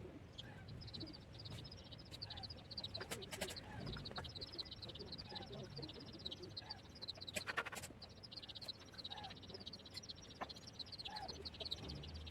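Faint, fast high-pitched chirping of small animals as a steady chorus, with two short clusters of quick clicks about three and seven and a half seconds in.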